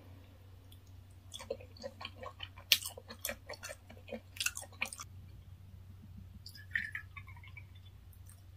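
Close-up chewing of a mouthful of raw fish sashimi: a run of soft wet smacks and clicks for about the first five seconds, then quieter.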